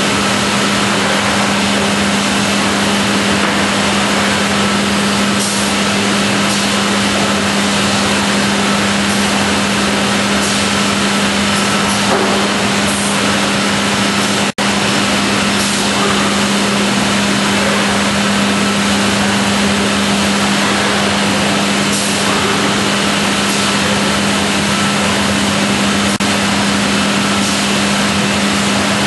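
Busellato JET 200 RT CNC router running and routing panels: a loud, steady machine noise with a constant low hum, broken once by a momentary dropout about halfway through.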